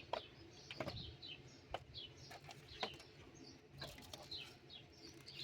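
A small bird chirping steadily in the background, short falling chirps about two or three a second, with a few sharp clicks and knocks of small parts and packaging being handled and set down.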